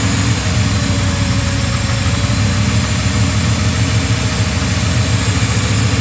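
Turbocharged LS V8 engine idling steadily with an even low pulse and a steady hiss over it.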